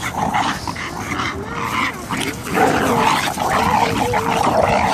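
Bull terrier and American Staffordshire terrier growling while tugging on a rope toy in a play tug-of-war, the growls rough and continuous, louder in the second half.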